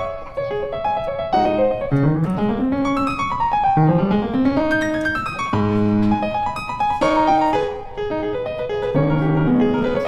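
Background piano music: rising and falling runs of notes with held chords.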